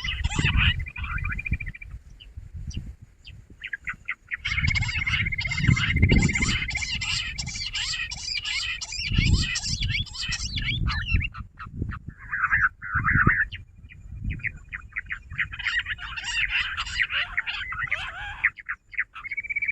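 Jungle bush quails calling in bursts of rapid, chattering notes, with short pauses between the bursts, over a steady high trill. A low rumble comes with the louder bursts.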